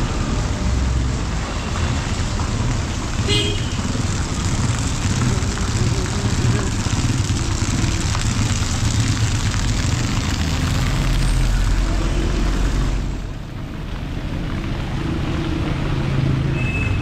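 Street traffic on a wet road in the rain: car, motorcycle and auto-rickshaw engines running close by and tyres on wet tarmac, over a steady hiss of rain. A deep engine rumble swells from about ten seconds in and drops away near thirteen seconds.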